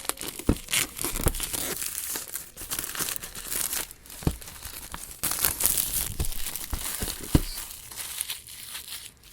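Packaging being handled and unwrapped: a long stretch of crinkling and tearing, broken by several sharp knocks as the box is handled.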